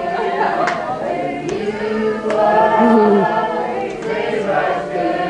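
A group of people singing a worship song together, many voices overlapping.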